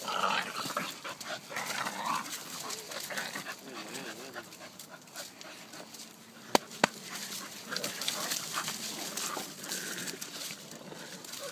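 A black puppy about ten weeks old and a white bull terrier play-wrestling, with dog whimpers and a wavering whine among scuffling in dry leaves. Two sharp knocks about six and a half seconds in are the loudest sounds.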